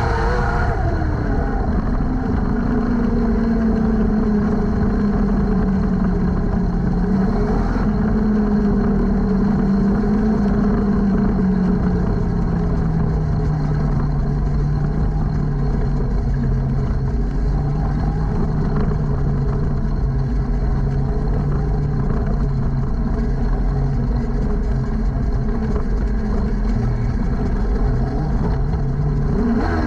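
Jr sprint car's engine heard from its own cockpit, running at a slow pace. Its pitch falls gradually over the first dozen seconds as the car slows from racing speed, then holds at a low steady note.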